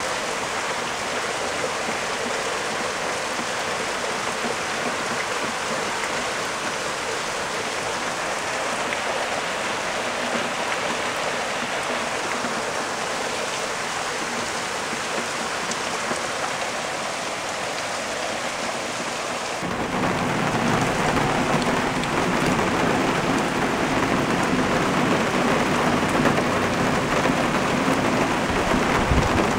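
Thunderstorm: rain falling steadily. About two-thirds of the way in, a deep thunder rumble comes in suddenly and the whole sound grows louder and stays so.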